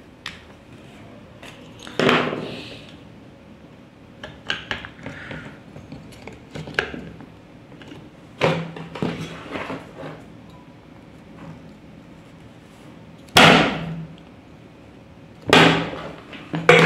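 Irregular clicks and knocks of a MOSFET on its metal heatsink and a screwdriver being handled on a workbench while the MOSFET is fitted, with two louder knocks near the end.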